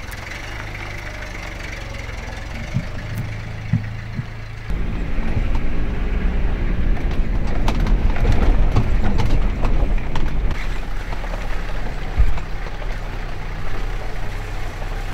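An engine running steadily, getting louder and heavier about a third of the way in, with a few knocks over it.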